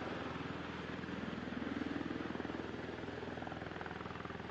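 Aircraft engine running with a steady, even drone that swells briefly about two seconds in.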